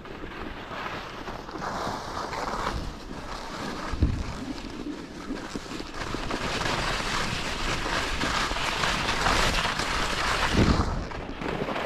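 Skis hissing and scraping over firm, wind-scoured snow while skiing downhill, with wind buffeting the camera microphone. The hiss grows louder from about halfway through, and there is a short thump about four seconds in and another near the end.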